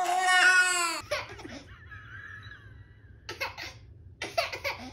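A baby's loud, drawn-out cry that falls in pitch and breaks off about a second in. After a short lull, a baby giggles in quick short bursts, twice.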